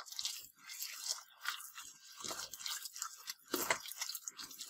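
A hand rubbing butter, sugar and eggs against a glazed earthenware dish, the sugar grains crunching and scraping with each uneven stroke; louder strokes come about two and three and a half seconds in.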